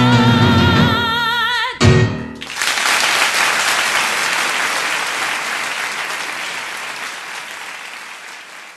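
A singer holds the song's final note with vibrato over the accompaniment, which closes with a short final chord about two seconds in. Then an audience applauds, the applause slowly fading.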